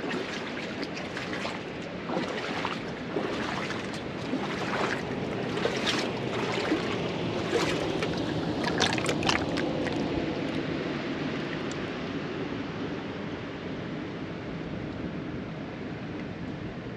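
Shallow lagoon water lapping and trickling against eroded coral rock, with quick splashes and clicks through the first half over a steady wash of water noise, which later carries on alone.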